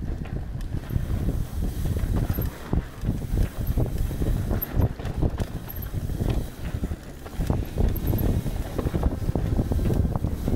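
Mountain bike riding fast along a forest singletrack: wind noise on the microphone and a constant clatter of short knocks and rattles from the bike and its tyres running over roots and leaf-covered dirt.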